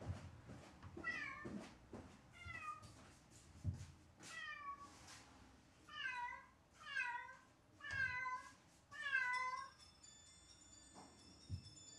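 Domestic cat meowing repeatedly while left alone, about seven meows, each falling in pitch, getting louder and closer together toward the end. This is the crying its owners fear is a sign of separation anxiety. Soft background music comes in near the end.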